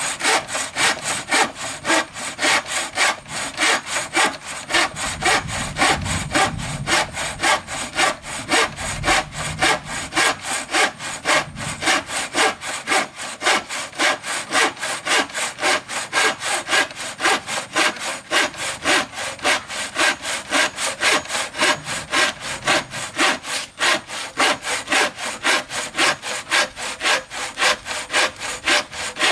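Hand saw cutting through wood in steady back-and-forth strokes.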